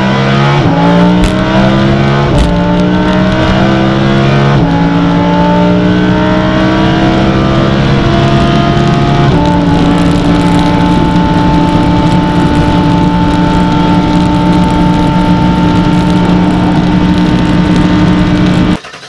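A supercar's engine accelerating hard up through the gears, the pitch climbing and then dropping at each of four upshifts, then settling into a steady drone at highway cruising speed, heard from inside the car.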